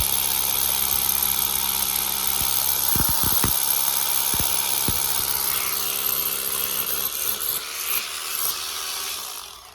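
Electric drill running steadily as it bores a hole into a thick wall, with a few low knocks about three seconds in; it stops near the end.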